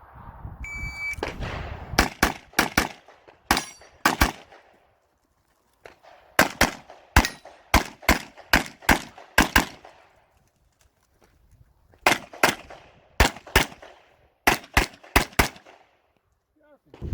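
A shot timer beeps once, and about a second later a competition handgun starts firing rapid pairs of shots. The shots come in three strings, separated by pauses of about two seconds.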